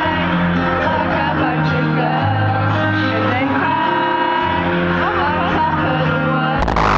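Live concert music heard from the crowd: a loud amplified pop/hip-hop track with singing over a steady bass line. The recording is poor and distorted, and a harsh burst of noise cuts in near the end.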